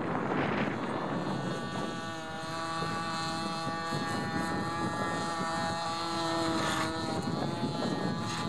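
Radio-controlled model aircraft's electric motor and propeller running at a steady pitch with a whine during a takeoff run along the runway, rising slightly and then cutting out about seven seconds in as the takeoff fails; wind noise on the microphone throughout.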